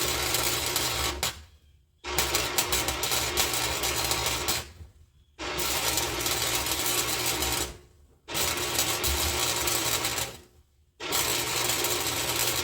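Wire-feed welder arc crackling and buzzing in runs of two to three seconds with short pauses between, about five welds in a row: stitch welding in short beads.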